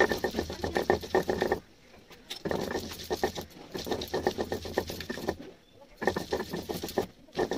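A stone roller rasping back and forth over a flat stone grinding slab (sil-batta) in quick gritty strokes, grinding a paste. The strokes come in runs, broken by two short pauses, the first about a second and a half in and the second after about five seconds.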